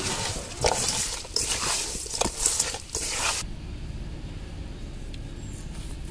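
A hand kneading and squishing tilapia pieces in a wet spice marinade inside a metal pot: wet squelching and rubbing with small clicks for about three and a half seconds, then it stops, leaving only a low steady hum.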